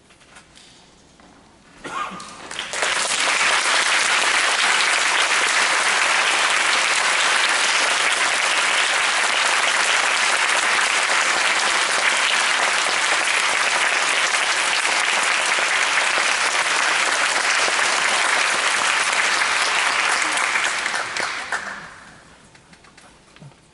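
Audience applauding. The applause starts about two seconds in, holds steady and dies away near the end.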